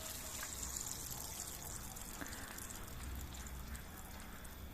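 Water being poured into a pan of stir-fry: a steady trickling hiss that slowly fades.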